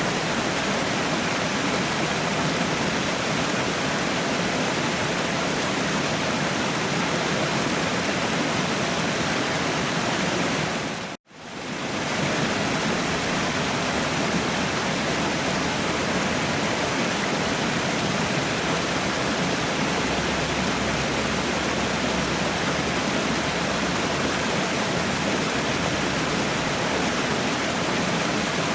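Waterfall: a steady, even rush of falling water. About eleven seconds in the sound cuts out for an instant and fades back in.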